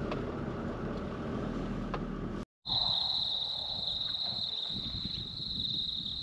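Vehicle driving noise heard inside the cabin, a steady low rumble, that cuts off suddenly a little over two seconds in. After the cut, insects chirr steadily at a single high pitch.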